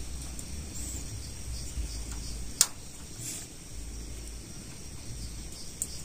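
Quiet handling of small plastic wire connectors, with one sharp click about two and a half seconds in and a fainter one near the end, over a faint low rumble.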